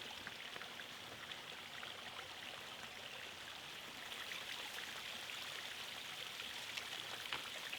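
Faint steady hiss with a few soft ticks scattered through it.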